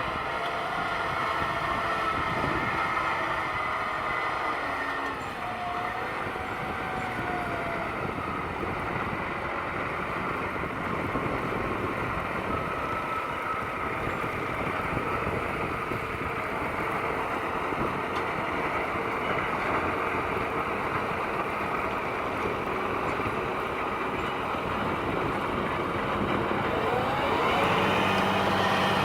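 Tractor engines running steadily under load. Near the end one engine's pitch rises and a lower, steady engine drone comes in.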